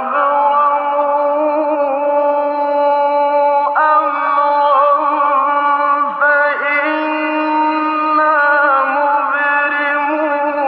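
A male Quran reciter chanting in a slow, melodic style, one voice holding long ornamented notes with rising and falling glides. The recording is old and sounds dull and narrow.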